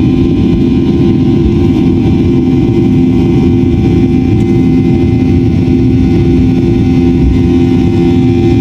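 Boeing 737-800's CFM56-7B turbofan engine at takeoff thrust, heard inside the cabin from the seat beside it: a loud, steady rumble with a few steady humming tones, through the end of the takeoff roll and liftoff.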